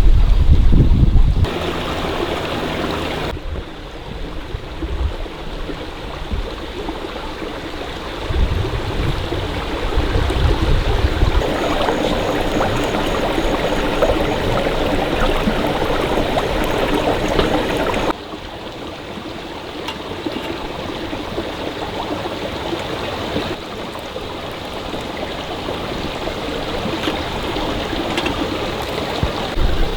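A small stream flowing, a steady rush of water that steps abruptly in level a few times, with some low rumble near the start and again about ten seconds in.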